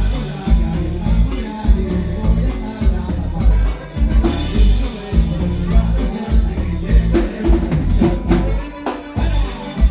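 Live norteño band music playing loud, with a steady bass and drum beat.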